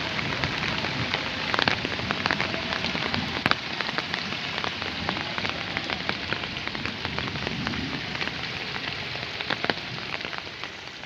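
Steady rain falling, with many sharp drop impacts and drips close by. It begins to fade away near the end.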